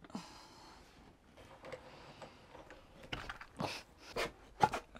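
Faint handling noise, then a few short knocks and clicks from about three seconds in, as a wooden table top and its metal pedestal leg are taken off their mounts.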